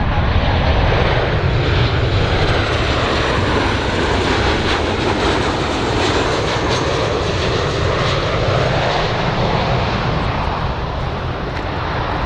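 Boeing 737-800 jet airliner on final approach, its two CFM56-7B turbofans running with a steady loud engine noise and a faint high whine. There is a slow sweep in tone through the middle.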